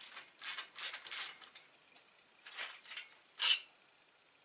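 Ratchet wrench clicking in short bursts as it backs out a water pump housing bolt on an outboard's lower unit, with one sharper, louder click about three and a half seconds in.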